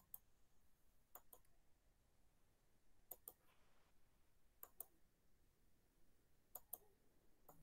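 Near silence with four pairs of faint, short computer mouse clicks, spaced about a second and a half apart.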